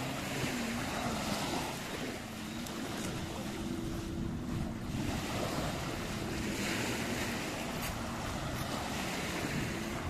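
Small waves washing up on a sandy beach, swelling twice, with the low drone of a boat engine running underneath, its pitch wavering.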